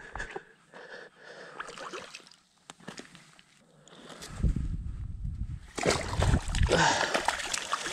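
Wind buffeting the microphone: a low rumble that sets in about halfway through and runs on, after a few faint clicks.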